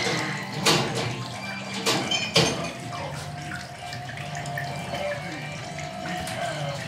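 Kitchen tap running water into a sink, a steady rush, with a few sharp knocks or clatters in the first two and a half seconds.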